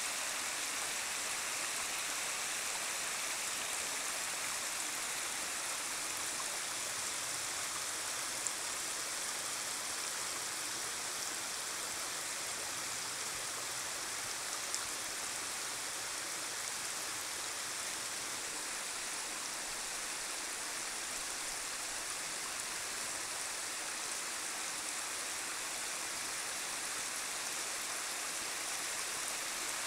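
A shallow creek running steadily over bare rock.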